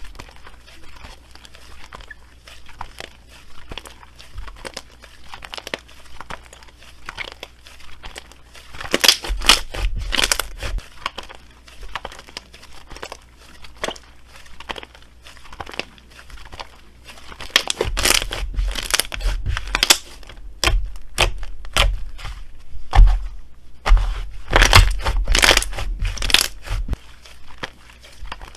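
Slime being handled, making quick irregular crackling and popping clicks, with louder, denser spells about 9, 18 and 25 seconds in.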